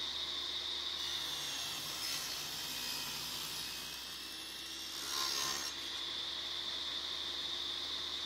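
Bench table saw running with a steady high whine while a wooden panelling board is ripped into a thin strip; the blade cuts through the wood from about a second in, loudest just past five seconds, then spins on freely.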